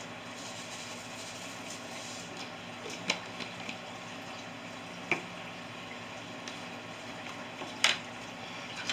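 Steady low hiss of kitchen room noise, broken by a few short clicks and knocks as a plastic spice jar and its screw lid are handled. The loudest knock comes near the end, as the plastic lid is set down on the countertop.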